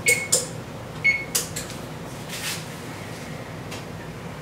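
Sharp metallic clicks and knocks in two pairs about a second apart, the first of each pair ringing briefly, then a short hiss, over a steady background hum.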